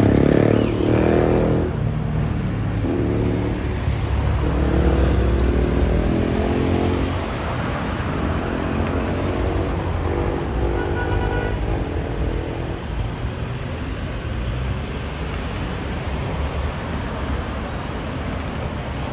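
Road traffic: a vehicle engine running close by for the first several seconds, then easing off into a steady low traffic rumble.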